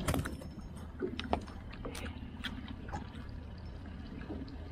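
Water lapping against a small aluminium fishing boat over a steady low rumble, with a few sharp knocks and rattles as a walleye is swung aboard on the line and handled, the sharpest right at the start and about a second in.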